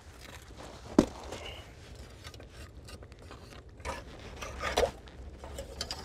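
A sharp knock of stone on rock about a second in, then faint scraping and small clicks as a steel crab hook is worked over rock and sand inside a crevice.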